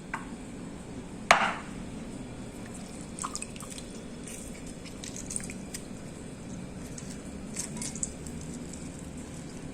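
Liquid dripping with small scattered clicks, and one sharp clink about a second in, over a low steady hum.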